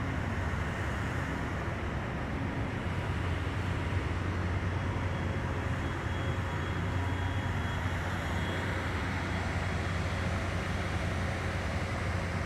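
Steady drone of drilling-rig machinery: a constant low hum under an even wash of noise.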